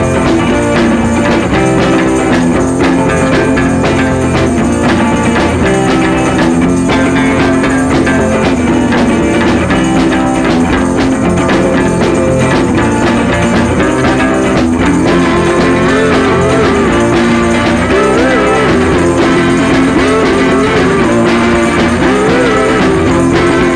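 Rock-style background music with guitar and a steady drum beat.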